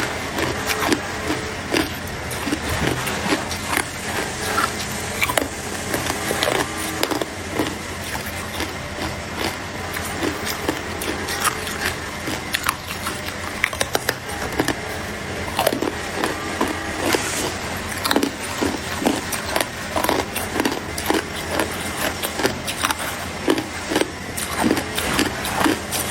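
A person biting and chewing ice, many sharp crunches in quick, uneven succession.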